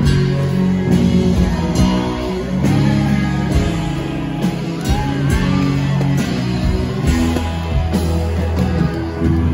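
Live rock band playing loudly: electric guitars and bass over a steady drum beat, heard from the crowd.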